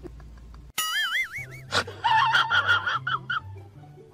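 Background music with a stepping bass line, opening about a second in with a warbling high tone.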